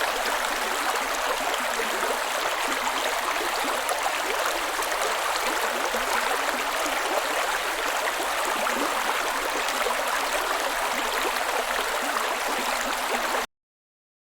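Steady rush of falling water from a waterfall, cutting off abruptly near the end.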